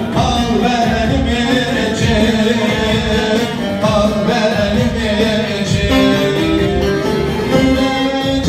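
Live amplified Turkish folk music: a man singing through a microphone and loudspeaker, accompanied by a strummed bağlama (long-necked saz), over a steady beat.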